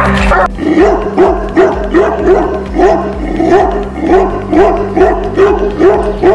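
A Tibetan Mastiff barking in a rapid, steady run, about three barks a second, over background music.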